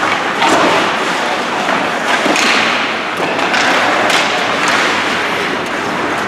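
Irregular thuds and knocks of game play in a large echoing hall, over a steady background of crowd noise.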